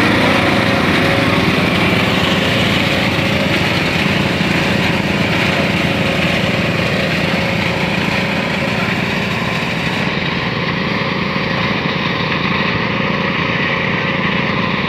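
Small engine of a simple well-drilling machine running steadily.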